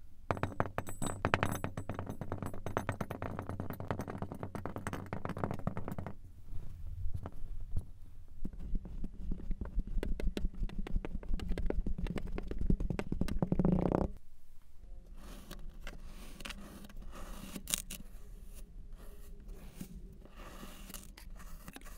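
Kinetic sand crunching and crackling as it is pressed down into a glass with a bamboo muddler. After about 14 seconds it turns quieter: sparser scraping and crumbling as a metal scoop cuts into the unmolded sand.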